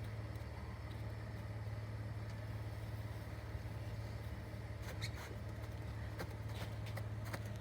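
A vehicle engine idling with a steady low hum. Light clicks and knocks come now and then in the second half.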